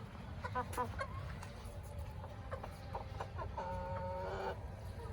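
Brahma chickens clucking in short calls, then one longer drawn-out call of about a second near the end.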